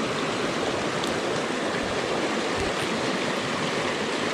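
Small mountain creek rushing and splashing over rocks, a steady even rush of water.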